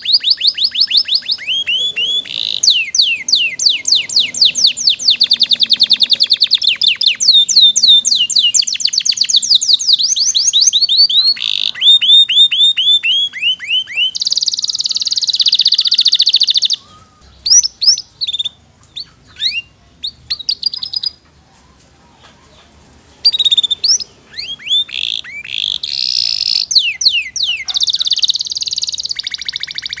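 Domestic canary singing a long, varied song of fast trills of repeated down-slurred notes and buzzy rolls. The song thins to scattered notes and a short pause a little past the middle, then picks up again.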